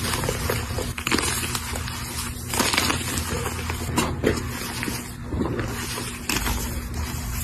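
A block of coloured gym chalk being crushed, crumbling with continuous crunching and crackling and a few louder crunches, over a faint low steady hum.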